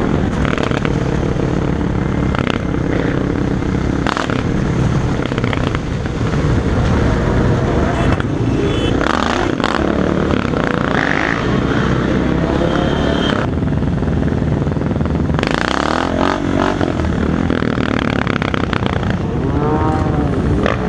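Motorcycle engines of a large group ride running together, heard from the rider's helmet with wind buffeting the microphone and short knocks and clatter. Engines rev up and down a few times in the second half.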